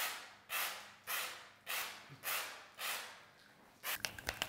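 Homax aerosol popcorn-ceiling texture spray can hissing in six short, evenly spaced bursts, about two a second, each cutting in sharply and fading. A few sharp clicks follow near the end.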